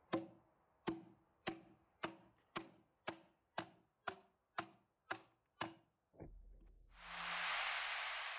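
Hammer striking the thin slabs of wood left between chainsaw kerfs in a log's saddle notch, knocking them loose: eleven sharp wooden knocks at about two a second. Near the end a rushing hiss swells up.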